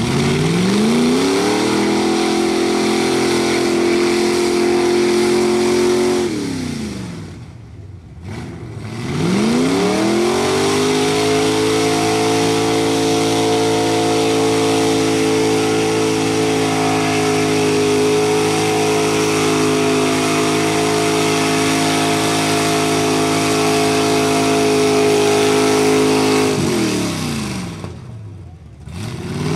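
Big-block Chevy V8 of a mud truck revving up and held at high revs under load as its tyres spin through a mud pit. It makes a long pull of about six seconds, drops off, climbs again for a pull of about seventeen seconds, drops off again, and revs back up near the end.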